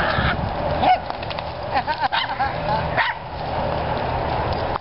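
Dogs playing, giving short rising-and-falling yelps and whines: one about a second in and a cluster around two seconds.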